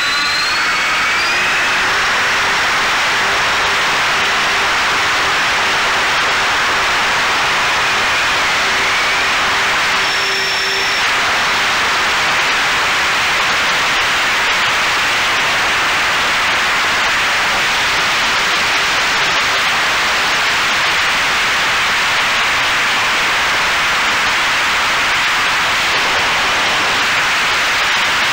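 Radio-controlled OV-10A Bronco model plane under power, heard from its onboard camera: a loud steady hiss of propeller wash and wind, with a faint motor whine underneath. The whine rises in pitch and levels off about two seconds in as the throttle comes up for the takeoff and climb.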